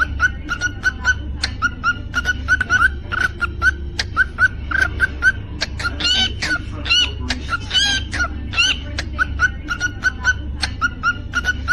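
Cockatiel singing: a quick string of short chirps with a few longer whistled notes mixed in, over a steady low hum.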